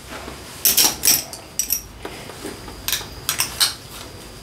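Metal buckle of a Kreepsville 666 bat belt clinking and jingling as the belt is fastened around the waist: a series of short, sharp metallic clinks.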